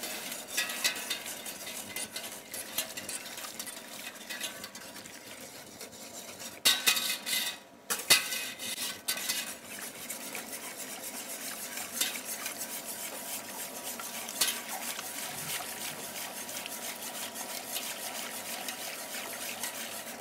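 A whisk stirring and scraping around the inside of a large stainless-steel stockpot, clinking against the sides, as warm water is whisked into a light roux. About seven seconds in there is a louder spell of scraping and clatter.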